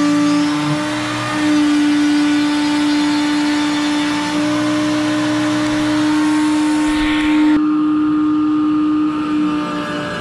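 Table-mounted router running with a steady high-pitched whine while it routes out the MDF enclosure's port opening. The rough cutting noise above the whine drops away suddenly near the end.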